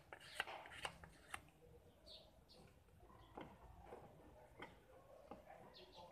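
Near silence, with faint scattered clicks and rustles and a couple of short high chirps.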